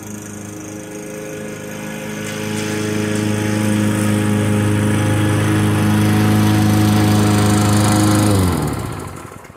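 Toro Personal Pace lawn mower's 6.5 hp Tecumseh engine running steadily, then shut off about eight and a half seconds in, its pitch sagging as it coasts to a stop. It ran great: the no-start fault is fixed.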